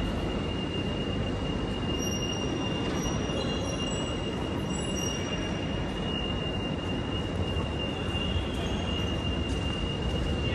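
Railway station ambience: a steady drone of trains idling in the station, with a constant high-pitched whine running through it.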